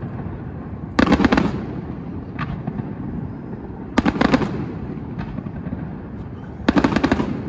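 Fireworks display: three volleys of several sharp bangs in quick succession, about a second in, at about four seconds and near the end, with single pops between them.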